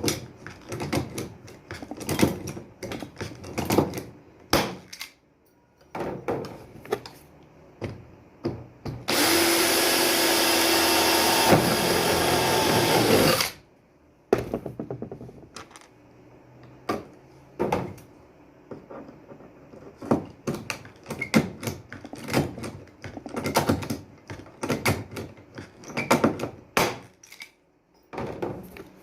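Taps and knocks of handwork on shower door fittings, and about nine seconds in a power drill runs steadily for about four and a half seconds, then stops.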